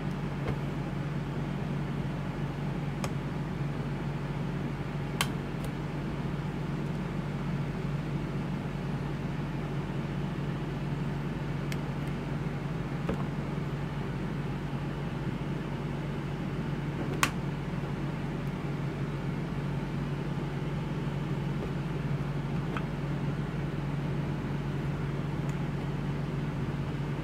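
Steady low hum of running bench equipment or a fan, with a few faint, scattered light clicks such as multimeter probes touching cell terminals.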